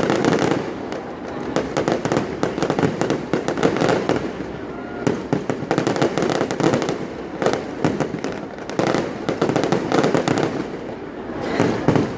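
Fireworks going off in a dense, continuous crackle of rapid pops, swelling louder several times.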